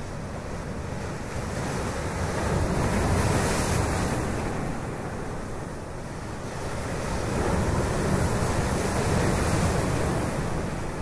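Small sea waves washing against shore rocks, swelling twice, about three seconds in and again around eight to nine seconds, with wind noise on the microphone.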